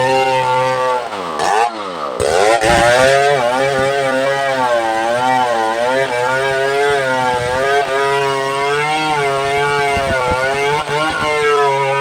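Chainsaw running at high revs, its pitch wavering as the load changes. The revs drop and climb back about two seconds in.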